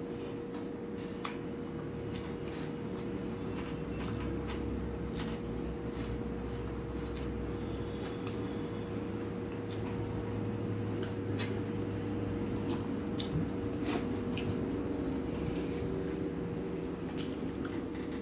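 Eating by hand: fingers mixing rice and vegetables on a steel plate, and chewing with many short wet mouth clicks and smacks, over a steady hum.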